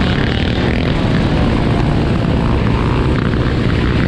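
Dirt bike engines running steadily while riding in a group, the nearest being the camera rider's own green Kawasaki, mixed with heavy wind noise on the microphone.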